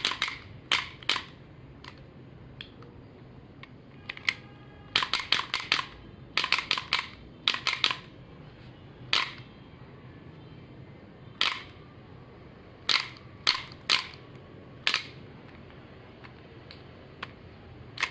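Toy shell-ejecting pistols cycling, each shot a sharp plastic clack. The clacks come in quick strings of four to six, in the middle and again near the start, and as single shots spread through the rest.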